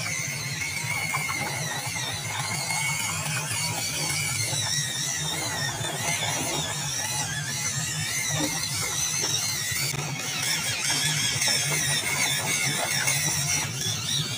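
WPL D12 RC pickup's small brushed electric motor and gearbox whining as the truck drives, the pitch wavering up and down with the throttle over a steady low hum.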